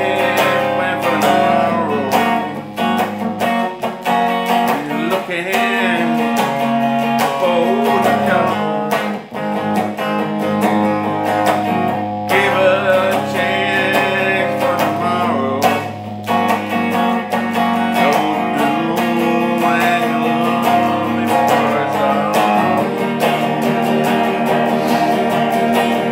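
Solid-body electric guitar being strummed and picked, with a man's voice singing over it.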